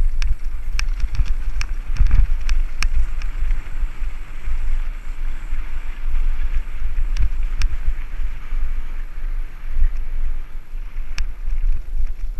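Mountain bike rolling down a rough trail: a steady wind rumble on the microphone over tyre noise, with scattered sharp clicks and rattles from the bike.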